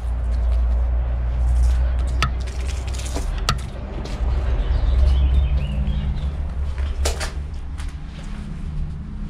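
A steady low rumble with a few sharp knocks and clicks, about four in all, the loudest about seven seconds in.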